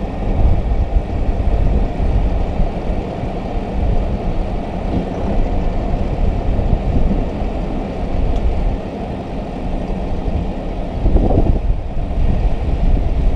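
Tractor engine running steadily at close range, a low rumble.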